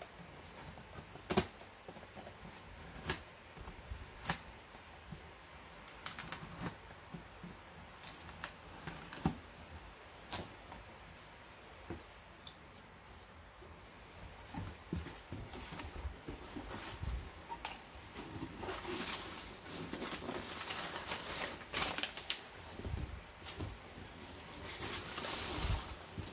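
Cardboard shipping box being cut open and handled: scattered taps, scrapes and tape-cutting clicks on the cardboard, then, from about two-thirds of the way in, a continuous crisp rustle and squeak of hands digging through foam packing peanuts.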